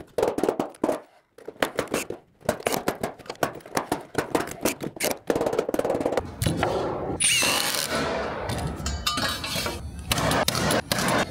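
Steel joist hangers clinking and knocking as they are laid out on a wooden LVL beam, followed by a louder, denser stretch of clatter with a positive-placement nail gun firing near the end.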